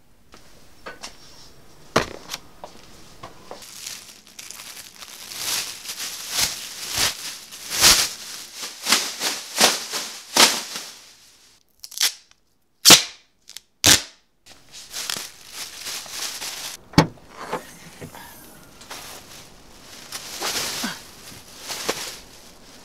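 Rustling and handling noises with scattered knocks, then, in a near-silent pause about twelve seconds in, three sharp, loud bangs about a second apart, followed by more knocks and rustling.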